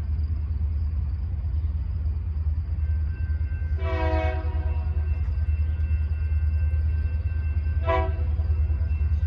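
Union Pacific freight locomotive air horn sounding for a grade crossing: a blast of about half a second, then a shorter second blast about four seconds later, over a steady low rumble.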